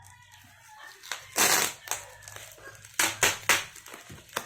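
Packing tape and cardboard on a sealed box being ripped at by hand: one long tearing noise about a second and a half in, then a cluster of shorter tears and knocks about three seconds in, and a sharp click near the end.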